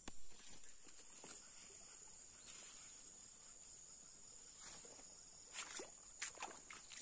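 Steady high-pitched insect chorus. A sharp knock comes just after the start, and footsteps and rustling on the muddy riverbank come near the end.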